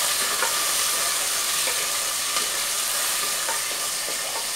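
Sliced onions sizzling steadily in hot oil in a pressure cooker, being sautéed toward golden brown, with a few light scrapes of a wooden spatula against the pot as they are stirred.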